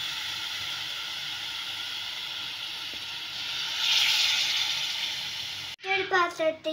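Steady hiss from a pan of sugar and water heating on a gas stove, swelling about four seconds in. Near the end it cuts off abruptly and a child's voice begins.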